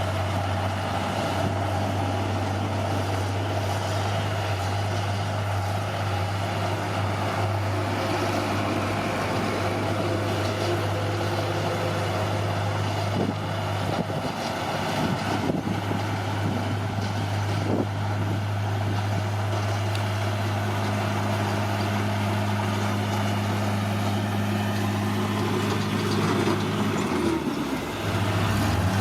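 A heavy diesel earthmoving machine, such as a bulldozer, runs steadily with a deep engine hum and a few short metallic clanks. Near the end the engine note dips briefly, then comes back.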